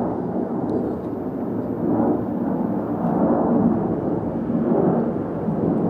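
Jet noise from a Boeing 737-700's two CFM56-7B turbofan engines at climb power just after takeoff. It is a steady, deep rushing rumble that swells and eases a few times.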